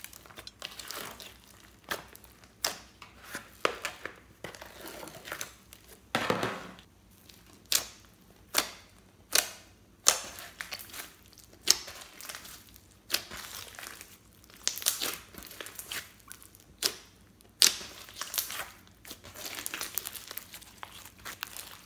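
Pink slime studded with small beads and glitter being kneaded, poked and stretched by hand. It gives irregular wet pops and clicks as trapped air bursts, with crackly stretches in between.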